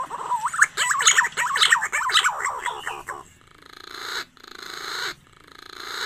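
Green pigeon (punai) calls used as a lure sound. A fast run of whistled notes slides up and down, then about three seconds in the calls turn to rougher, raspy phrases that swell and cut off sharply.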